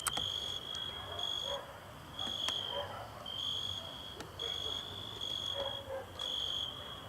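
Crickets chirping in a high, even trill that comes in short bursts, one after another. A few sharp clicks stand out over it, one right at the start and one about two and a half seconds in.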